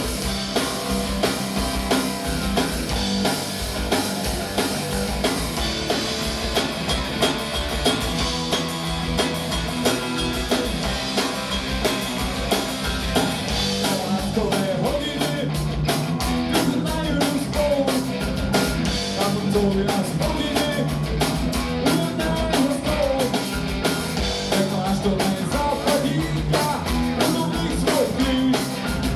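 Punk rock band playing live: electric guitars and bass over a drum kit keeping a fast, steady beat.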